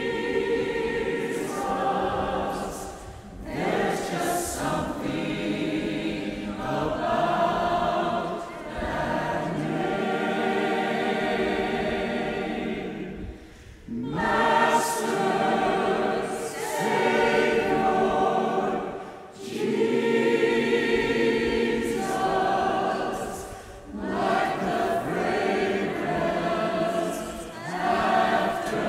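A church congregation singing a worship song a cappella, many voices together with no instruments. The singing comes in long held phrases, with brief breaks for breath between them.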